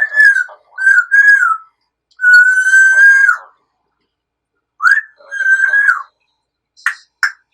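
A pet lory (nuri parrot) whistles a series of clear, level notes, one of them held for over a second. Near the end come a couple of short, sharp chirps.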